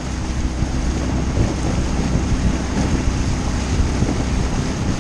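Outboard motor of a coaching launch running steadily, with wind buffeting the microphone.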